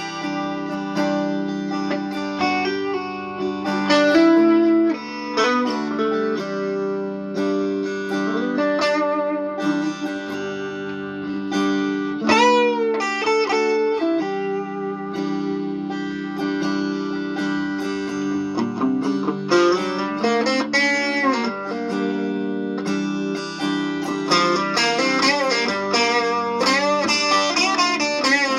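Telecaster electric guitar being played: ringing held notes under melodic lead lines, with several string bends that rise and fall in pitch.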